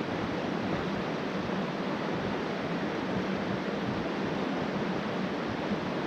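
Steady rushing of a mountain stream's flowing water, with no change in level.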